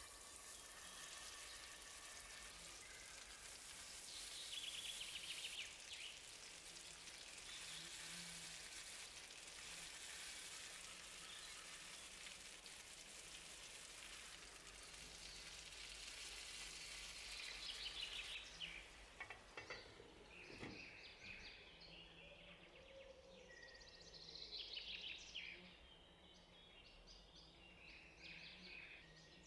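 Patties of minced beef, grated potato, onion and carrot frying in oil in a frying pan: a faint, steady sizzle. It cuts off suddenly about two-thirds of the way through, leaving only faint high chirps.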